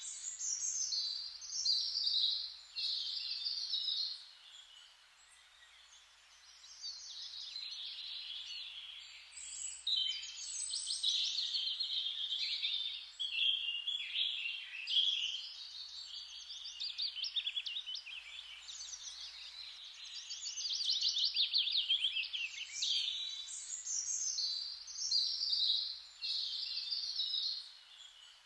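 Several songbirds singing, with overlapping songs and fast trills and a brief lull about four seconds in.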